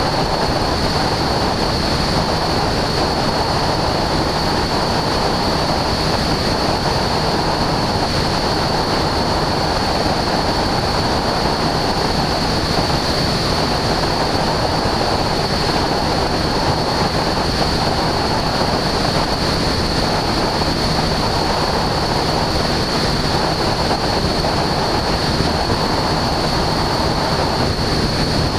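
Husky A-1C light aircraft in cruise flight: a steady rush of engine and airflow noise on the camera's microphone, with a thin, steady high tone over it.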